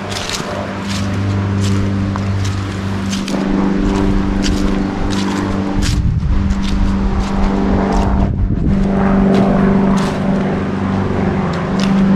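Footsteps on a path at walking pace over the steady drone of an engine that slowly grows louder.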